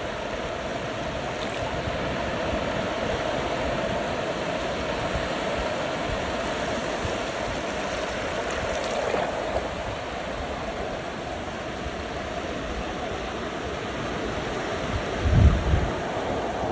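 Small waves breaking and washing in over the shallows, a steady rush of surf. A brief low thump about a second before the end.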